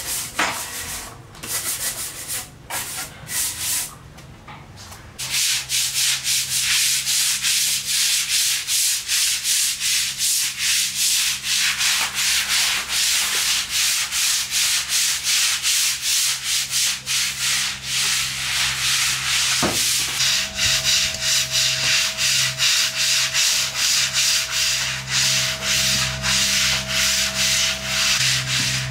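Stiff brush scrubbing wet, soapy surfaces: a few separate strokes of a hand brush on a wet wooden tabletop, then from about five seconds in fast, steady scrubbing of a tiled floor with a long-handled brush, about four strokes a second.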